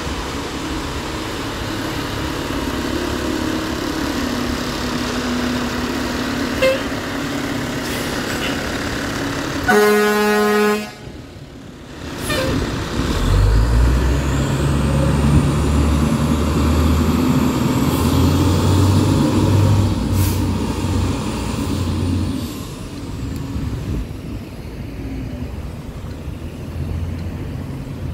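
A fire department aerial ladder truck's diesel engine running, with one blast of its air horn about ten seconds in, lasting about a second. The engine then gets much louder as the truck pulls out and drives away, easing off near the end.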